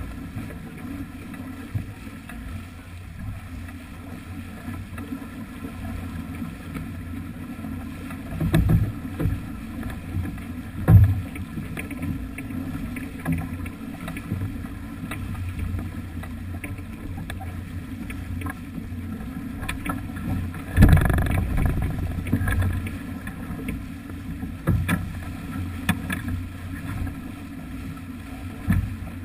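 Sailing yacht under way: steady low wind rumble on the camera's microphone and water rushing along the hull. A few sudden knocks come about a third of the way in, and a longer, louder gust or wave surge comes about two-thirds of the way through.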